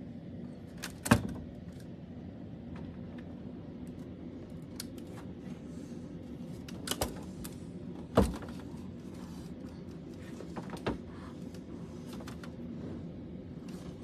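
A few sharp knocks or clanks, the loudest about a second in and another about eight seconds in, over a steady low background hum.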